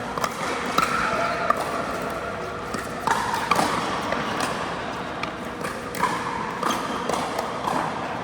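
A pickleball rally: sharp pops of paddles striking the plastic ball and of the ball bouncing, coming irregularly about a second apart.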